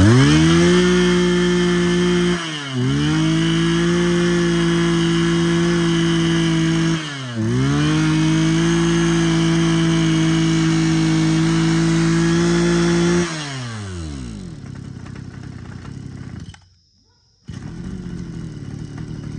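Mitsubishi TL261 26cc two-stroke brush cutter engine revved to full throttle and held steady. The throttle is let off briefly twice and reopened, then released to idle about 13 seconds in. After a short break near the end, the engine is heard running low again.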